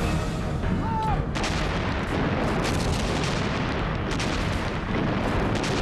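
Battle sounds: dense, continuous gunfire and artillery explosions, with a short whistle about a second in.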